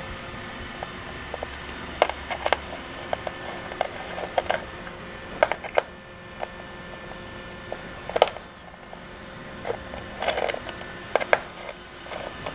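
Scattered sharp clicks and light taps from a 4 mm Allen key working the bolts of plastic Shimano SPD-SL road cleats and the loosened cleat being handled on the shoe sole, over a faint steady hum.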